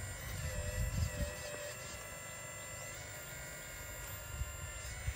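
Whine of a radio-controlled excavator's electric motors as it digs sand. The pitch steps up and down several times as the controls change, with a few dull knocks about a second in and two short clicks near the end.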